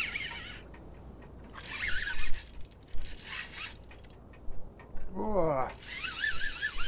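Spinning reel's drag buzzing in three bursts as a hooked pollack pulls line off against it.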